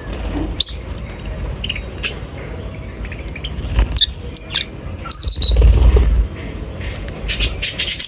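Birds chirping and squawking in short, scattered calls. A loud low rumble comes through about five and a half seconds in.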